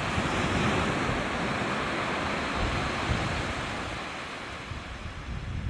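Waves breaking on a sandy beach: a broad wash of surf that swells in the first second and slowly fades, with wind buffeting the microphone underneath.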